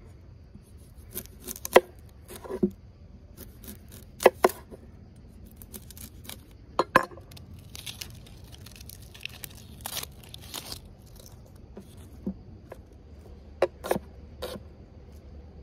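An onion being peeled and cut with a kitchen knife on a wooden cutting board: its dry, papery skin crackles and tears as it is pulled off, with scattered sharp knocks of the knife against the board.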